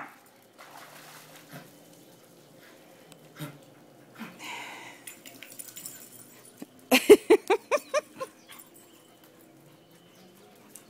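A dog barking: a quick run of about seven sharp barks, lasting just over a second, about seven seconds in.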